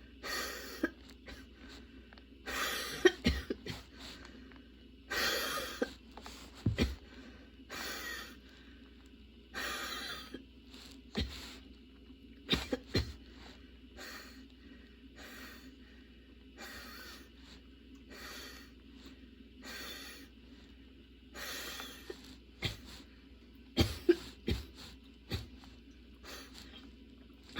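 A woman coughing in a long, persistent fit: harsh coughs in bunches every second or two, with a quieter lull in the middle before the coughing starts again.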